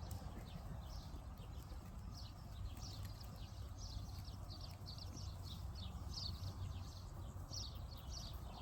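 Small birds chirping, many short quick chirps a second, over a steady low rumble.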